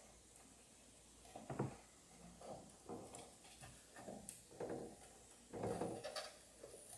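Faint, scattered knocks and plastic clicks from handling as RAM modules are pushed down into a desktop motherboard's memory slots and their retaining clips snapped shut.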